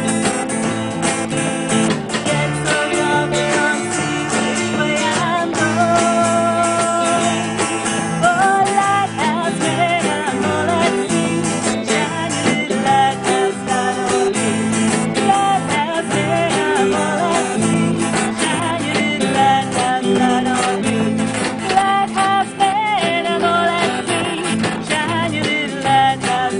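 Live band playing a song: guitar, bass and drums over a steady beat, with a melody line that bends in pitch.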